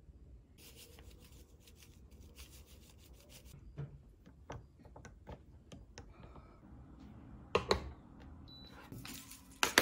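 Milk tea powder poured from a paper sachet into a glass mug with a soft, dry rustling hiss, then a wooden spoon stirring and ticking lightly against the glass. A few sharper knocks come in the last couple of seconds as the mug is set down on a mug warmer.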